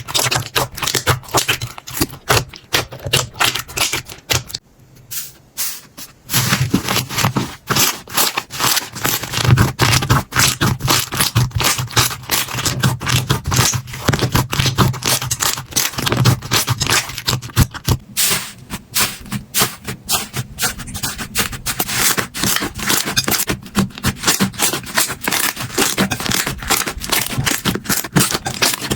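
Slime being squished and poked by hand, giving a dense, rapid run of crackling clicks and pops, with a short quieter break about five seconds in.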